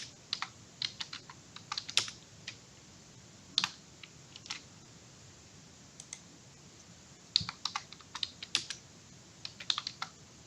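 Typing on a computer keyboard to enter a web search: bursts of quick key clicks with short pauses between them, the densest run a little past the middle.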